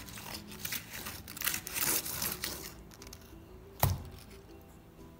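A soft black sesame swirl milk-bread loaf being torn apart by hand, its crust and crumb crackling and tearing for about three seconds. Then a single sharp knock just before four seconds in.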